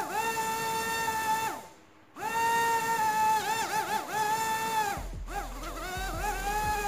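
Tiny cylindrical DC drone motor with a plastic propeller spinning at high speed, giving a high whine. It cuts out just under two seconds in and starts again about half a second later, its pitch dipping briefly a few times as it runs.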